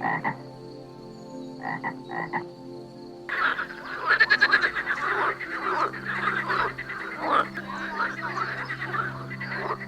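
Frogs croaking: a few single short croaks at first, then about three seconds in a dense chorus of many frogs croaking over one another starts suddenly and keeps going.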